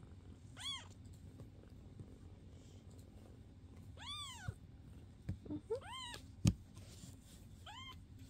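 A young kitten meowing four times, high-pitched short calls that each rise and fall in pitch, spaced one to three seconds apart. One sharp click, the loudest sound, comes between the third and fourth meows.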